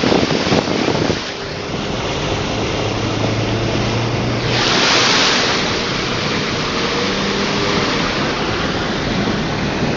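A car driving through deep floodwater: water washing and splashing against the car, with a louder surge about five seconds in. A faint low engine hum sits underneath.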